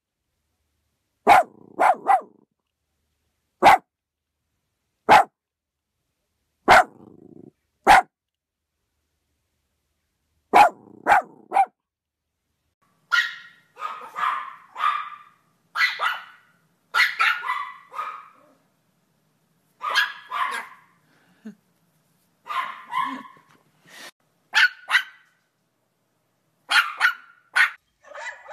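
Yorkshire terriers barking: short, sharp single barks a second or two apart, sometimes in quick pairs, then from about 13 seconds in, faster runs of higher-pitched barks in clusters.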